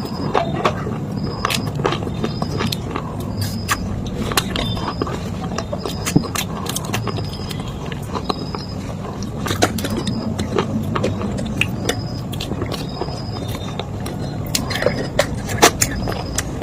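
A metal spoon crunching and scraping through water-soaked pieces of clay pot and slate in a bowl: an irregular stream of crisp clicks and crackles.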